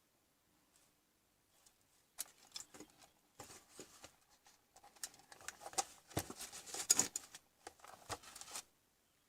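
Handling noises: a run of small clicks, taps and scrapes that starts about two seconds in, grows busier, and stops shortly before the end.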